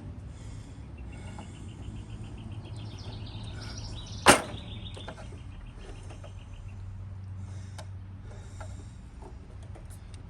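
Screwdriver and hands working up under a riding mower's dash to pry loose the ignition switch's retaining clips: small scattered clicks and taps, with one sharp knock about four seconds in.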